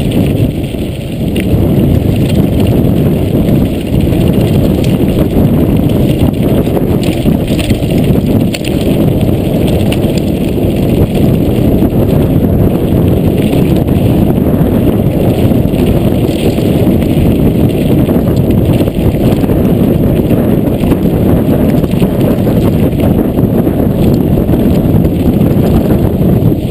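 Steady loud rumble and rattle of a mountain bike rolling fast over a loose, rocky gravel trail: knobbly tyres on stones and the bike jolting over the rough surface.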